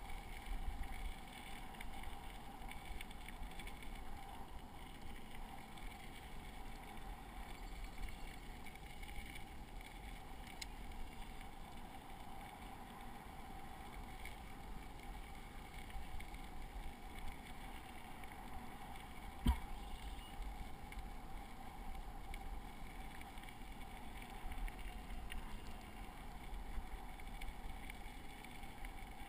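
Bicycle rolling along a gravel trail, picked up by a GoPro action camera mounted on the rider: a steady low rumble from the tyres and riding, with one sharp knock about twenty seconds in.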